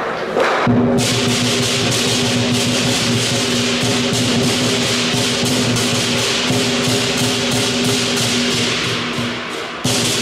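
Lion dance percussion: a large lion drum beaten in fast rolls with crashing hand cymbals and a ringing gong, a dense driving rhythm. It starts under a second in, and near the end it thins briefly before coming back in loud.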